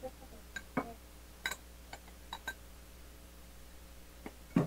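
Quiet eating: a spoon working rice out of a small ceramic bowl and chewing give about eight soft, scattered clicks and taps over a faint room hum.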